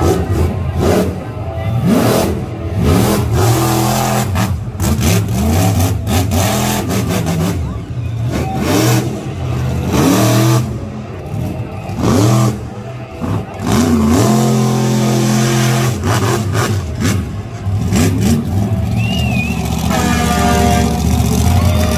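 Engine of a big-tyred off-road show truck revving hard over and over, its pitch climbing and dropping every second or two.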